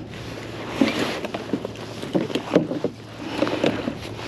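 Small waves lapping and slapping against the plastic hull of a fishing kayak, in irregular slaps a couple of times a second.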